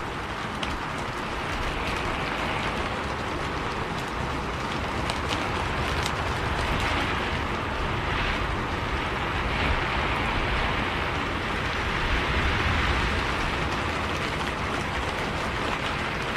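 Steady rain on a bus, a hiss with scattered sharp raindrop ticks, over the low rumble of the moving bus.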